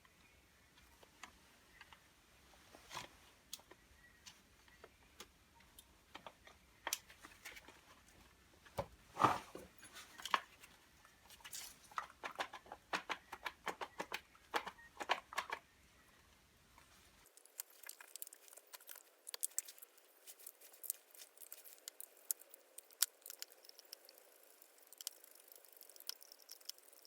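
Faint scattered clicks, taps and light knocks of small hammer-drill parts being handled. The loudest is a knock about nine seconds in, and after about seventeen seconds the clicks turn sharper and thinner.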